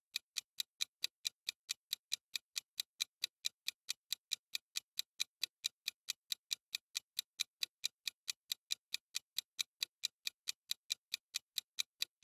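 Interval timer app ticking evenly, about four quiet, high clicks a second, while it counts down a workout interval.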